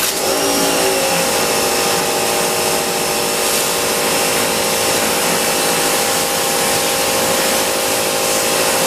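Sun Joe electric pressure washer kicking on as the spray gun's trigger is pulled. Its motor whine rises over the first second and then holds a steady pitch over the hiss of the water jet hitting a car wheel.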